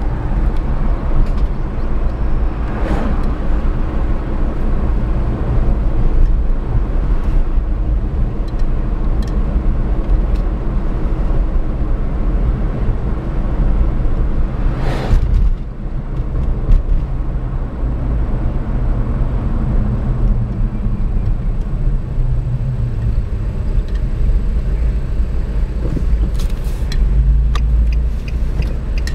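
Steady low rumble of a car's engine and tyres heard from inside the cabin while driving. Oncoming cars swish past, the clearest about halfway through. Near the end the turn signal starts ticking in an even rhythm.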